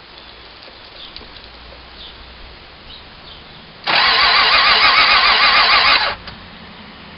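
Engine turned over by its starter motor for about two seconds, with a rhythmic pulsing whir, then cut off without catching. This is a failed start on an engine that won't start.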